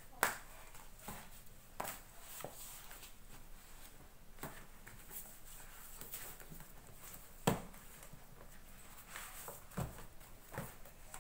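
Books and papers being handled on a desk: paper rustling and soft knocks as books are picked up and set down. There are two louder thuds, one just after the start and one about seven and a half seconds in.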